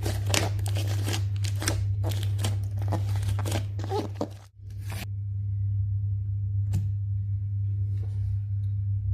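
Thick bread-dough slime being squished and stretched, giving dense crackling and popping for about four and a half seconds, then stopping. A steady low hum sits underneath, and a single click comes after the slime goes quiet.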